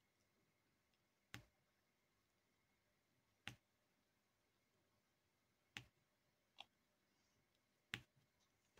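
Sharp single clicks from a diamond painting drill pen setting resin drills onto the adhesive canvas, five in all, about two seconds apart, the fourth fainter, in an otherwise near-silent room.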